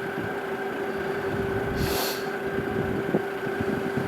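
Steady hum of a campervan's heater running, a constant tone over an even whooshing haze, with a brief hiss about two seconds in.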